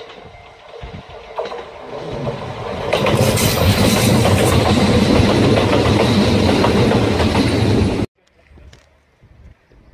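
Kintetsu electric train passing at speed, its running and wheel noise building over a couple of seconds to a loud, steady roar of the cars going by, then cutting off suddenly about eight seconds in, leaving faint wind.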